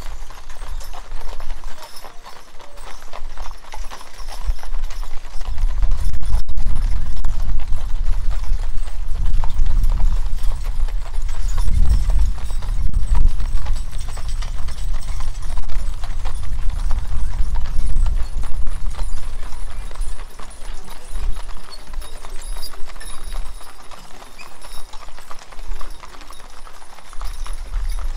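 Mules' hooves clip-clopping at a walk on a paved lane as teams pull covered wagons past. A low rumble swells in the middle and fades again.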